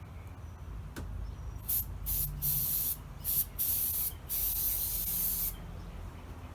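Aerosol spray can hissing in a string of short bursts, then longer sprays of about half a second and a second.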